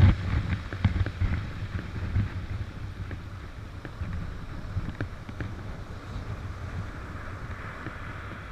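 Shallow waves washing over a shingle beach, with small clicks from the pebbles, under a low rumble of wind on the microphone. The whole sound slowly fades.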